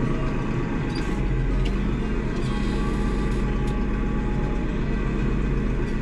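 Tractor engine running steadily, heard from inside the closed cab, with a few faint light clicks.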